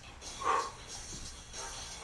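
A man's short, forceful grunts on the exhale, timed to his knee-drive reps: one about half a second in and the next just at the end.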